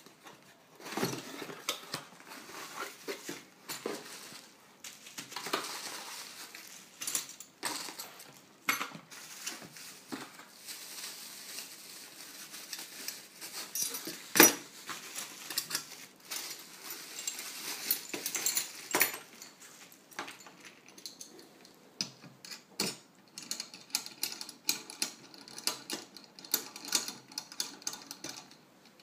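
Unboxing and assembling a Ruixin Pro knife sharpener: cardboard and plastic wrapping rustling, and the sharpener's metal parts clicking and clinking as they are handled and set on the table. One sharp knock about halfway through, with denser clicking near the end as the clamp and rod are fitted.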